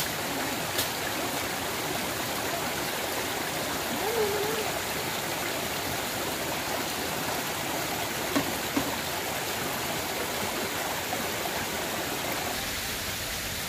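Steady rushing of running water, as from a nearby stream, with two light knocks about eight and a half seconds in.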